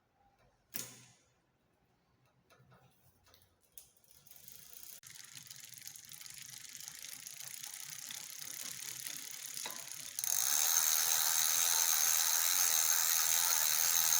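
Drivetrain of a 29-inch SLP mountain bike turning, the chain running through the rear derailleur with a fast clicking whir that builds up and jumps louder about ten seconds in, after a single sharp click about a second in. This is the noise the rear derailleur is making.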